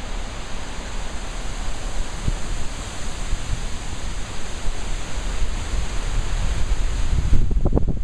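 Storm wind blowing hard: a steady hiss with low rumbling buffeting on the microphone, and a stronger gust near the end.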